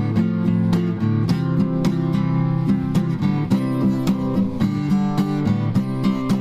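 Background music: acoustic guitar strumming and plucking a steady tune.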